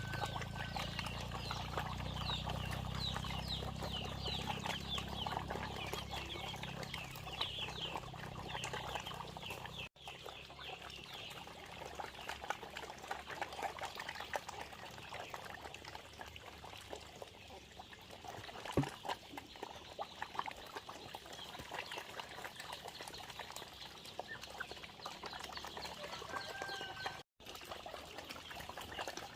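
Poultry calling, many short high chirps in quick succession, with some splashing or pouring water. A low steady hum sounds underneath until an edit about ten seconds in.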